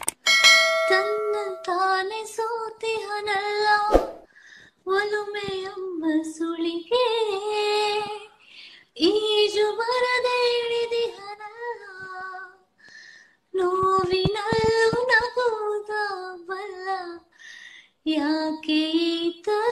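A woman singing a romantic song solo, without accompaniment, in a high, soft voice, in phrases of a few seconds with short pauses between them.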